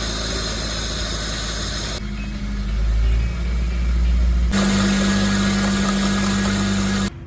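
Subaru Sambar's engine running with an abnormal noise that is traced to its air-conditioning compressor, heard in three abruptly joined stretches, the last carrying a strong steady drone. The sound cuts off suddenly near the end.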